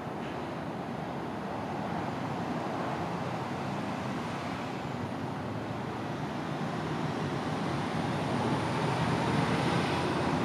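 Steady background road-traffic noise, growing a little louder in the last few seconds.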